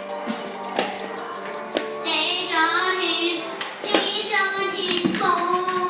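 Music with a singing voice: held, wavering sung notes over a steady musical backing, with a few sharp clicks.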